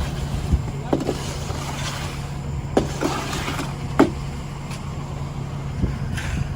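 Concrete mixer truck's diesel engine running steadily, with a few sharp knocks and a short scraping hiss from the pour work.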